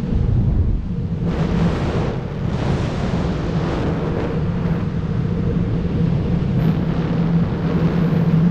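Freefall airflow rushing over a wingsuit flyer's helmet-mounted camera microphone: a loud, steady low rumble of wind noise, with swells of hiss about a second in and again from two and a half to four seconds.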